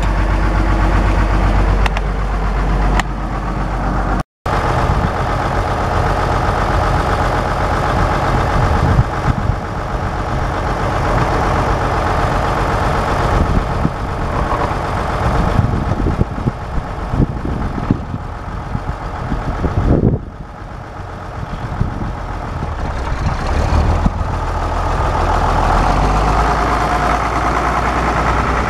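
Case 1070 tractor's six-cylinder diesel engine running steadily, first heard close up from the seat and then from beside the tractor as it moves past.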